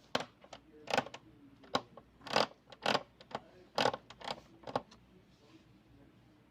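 An irregular series of about ten sharp clicks and knocks over roughly five seconds, the sound of hard objects being handled.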